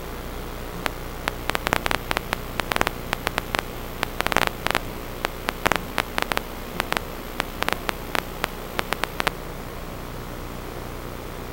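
Steady electrical hiss and mains hum, with a run of sharp, irregular clicks or crackles from about one second in until about nine seconds in.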